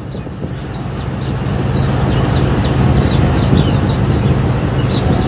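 Many quick, high bird chirps over the steady low hum of a boat's engine and the rush of its wake water.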